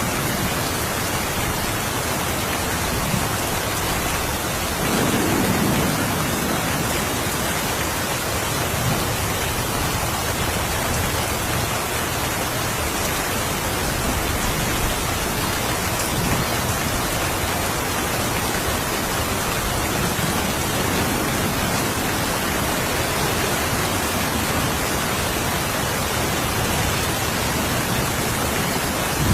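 Steady rain falling, with a soft roll of distant thunder about five seconds in and fainter low rumbles later.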